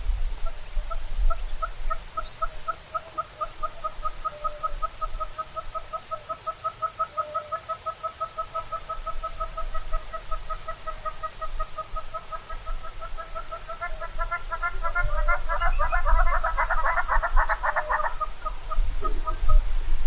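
Southern red-billed hornbill calling: a long series of clucking notes, about four a second, that build into a louder, faster, fuller burst of calling before stopping abruptly near the end. Faint high chirps of small birds sound in the background.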